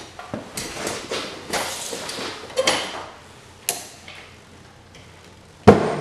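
Handling noises around a 1911 Underwood No. 5 typewriter: a run of rustles and light knocks, then one sharp, loud knock as hands come down on the machine near the end.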